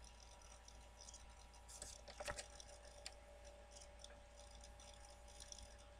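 Near silence: room tone with a faint steady hum and a few soft clicks about two seconds in.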